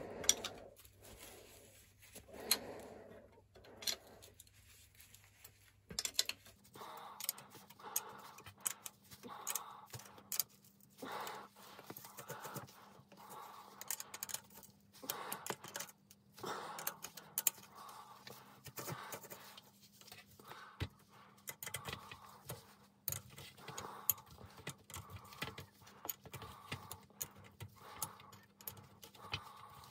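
A metal spanner works the nut on the saddle clamp of a Dunlop M15 sprung bicycle saddle, giving a string of light metallic clicks and clinks with soft scraping, about once a second.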